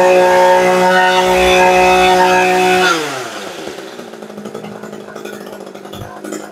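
Echo 24cc two-stroke brush cutter engine running at full throttle with a steady high whine. About three seconds in the throttle is let go and the revs fall away to a much quieter idle.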